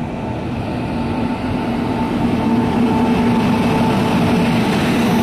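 Unchahar Express passenger train moving slowly into the platform. Its running rumble and a steady hum grow louder over the first few seconds, then hold steady.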